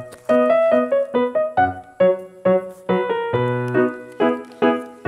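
Background keyboard music: a simple piano-like melody of separate notes, each struck and dying away, over occasional low bass notes.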